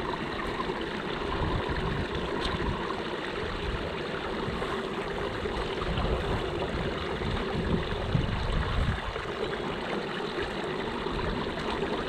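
Pond water rushing and gurgling steadily as it drains into an overflow pipe through a canary-cage drain guard that has just been raked partly clear of debris.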